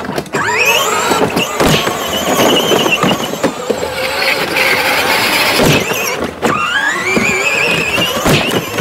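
Car sound effect of tyres squealing and an engine revving, a rising whine that comes twice: about half a second in and again around six and a half seconds. A few knocks fall between, and there is a thump near the end.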